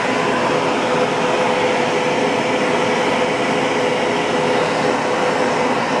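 Vacuum cleaner running steadily with a constant tone over its rushing air, its hose nozzle being drawn through a dog's thick coat to suck out the shedding undercoat.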